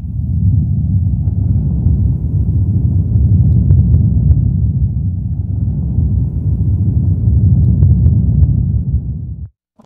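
Deep, steady rumble sound effect, like a starship's engines powering up. It starts suddenly and cuts off sharply after about nine and a half seconds.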